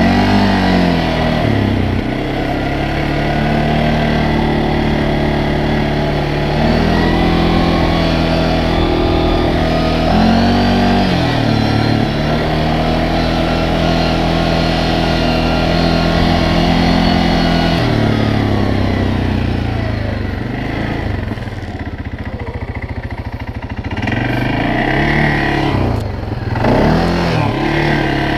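CFMoto CForce 600 ATV's single-cylinder engine running under way, its pitch rising and falling as the throttle opens and closes. It eases off about eighteen seconds in and picks up again in short revs near the end.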